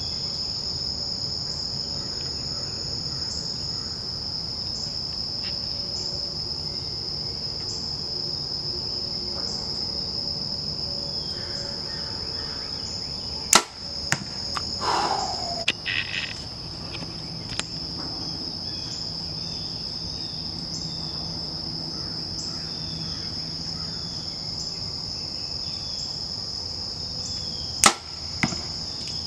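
A compound bow is shot twice: a sharp snap of the string about halfway through and again near the end. Underneath is a steady chorus of crickets and other insects with a high trill.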